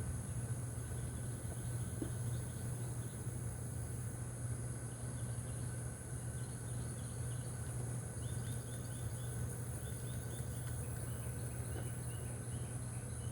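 Outdoor insect and bird ambience: a steady low hum and steady high insect tones, with quick runs of short chirps from a few seconds in.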